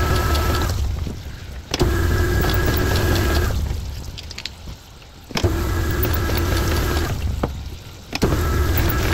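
CK10 cylinder honing machine honing a cylinder bore of a Sprinter engine block under a flow of honing oil: a steady motor hum with a low rumble and a faint whine. It runs in spells of about two seconds, dropping off between them and starting up again three times.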